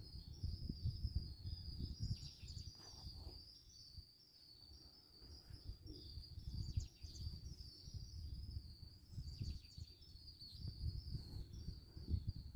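Fabric rustling and soft bumps as hands fold and smooth a thin cotton summer top, with a steady high-pitched chirring in the background.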